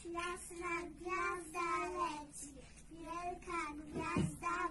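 Young children singing together, a simple melody in short held phrases, with a brief low bump about four seconds in.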